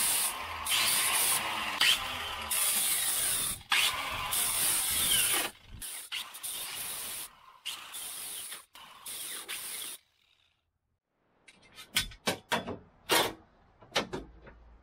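Angle grinder with a sanding disc grinding the fiberglass edge of a deck opening, its whine rising as it spins up and the noise cutting in and out, then dropping away to a quieter rasp. After a short silence, a series of sharp knocks.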